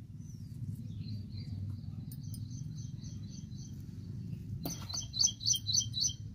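Birds chirping: faint high twittering at first, then a quick run of about six louder chirps near the end. A steady low rumble runs underneath.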